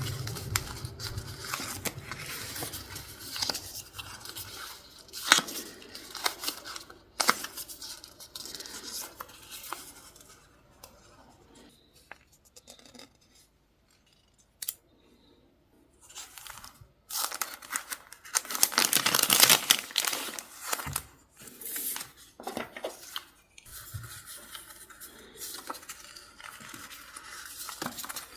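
Close-up paper handling: paper and sticker sheets being snipped with scissors and torn, in a string of short, crisp snips and rustles. There is a nearly quiet pause in the middle and a louder, longer rustle about two-thirds of the way through.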